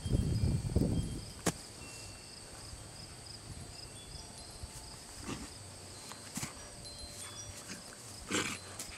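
A raccoon play-wrestling on grass: a burst of its noises and scuffling in the first second, the loudest part, then a sharp click and a few short sounds, with another brief burst near the end.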